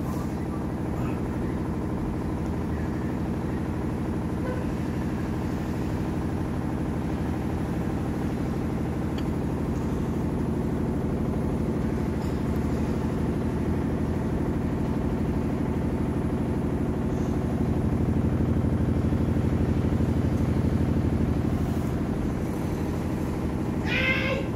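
Electrolux LST12 washing machine running, its motor giving a steady hum that swells a little for a few seconds past the middle. A short chirp sounds near the end.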